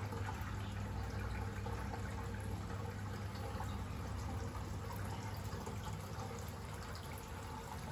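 Steady running and trickling of aquarium water from the tank's filtration, over a steady low hum.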